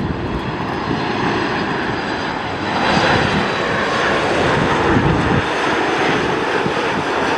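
Jet airliner engine noise, a steady rush that grows louder about three seconds in.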